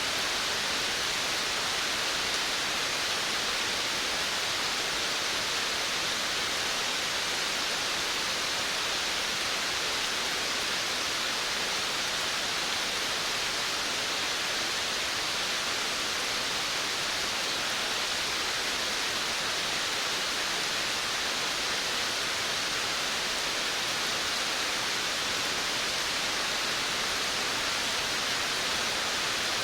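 Steady rain falling, a dense even hiss with no single drops standing out and no change in strength.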